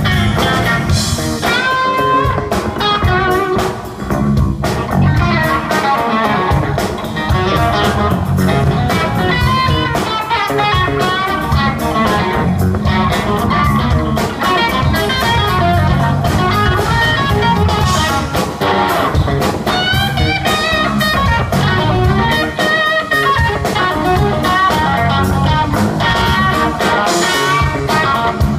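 Live blues band playing: electric guitar running quick melodic lines over electric bass and a drum kit, with no pauses.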